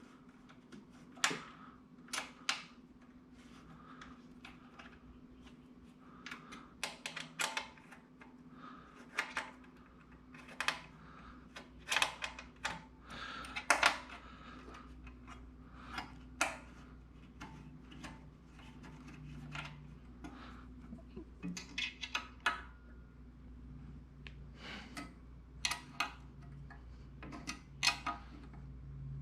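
Irregular clicks, clinks and light knocks of screws and metal parts being handled and hand-tightened while a cutting plotter is assembled on its stand, over a faint steady hum.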